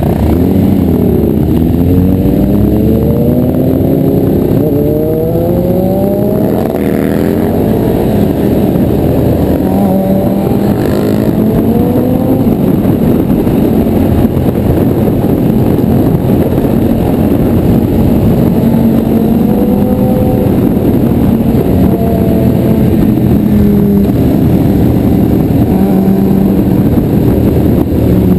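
Motorcycle engine accelerating through the gears, its pitch climbing and dropping back at each shift over the first several seconds, then running steadier at speed, with wind rushing over the microphone.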